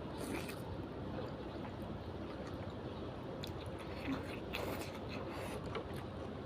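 A person chewing a mouthful of pork noodles close to the microphone: soft, quiet chewing with a few faint clicks scattered through.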